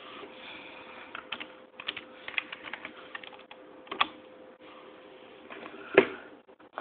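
Typing on a computer keyboard: a quick run of key clicks, then two louder single clicks about two seconds apart, the second the loudest.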